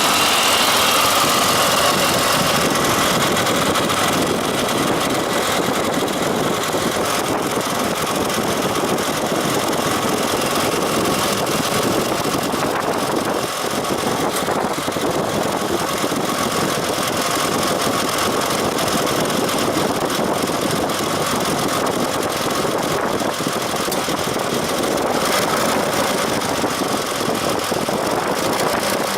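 BMW 635i's straight-six running at idle with an abnormal noise from its compressor, the fault the noise is a sign of. Steady and unbroken throughout.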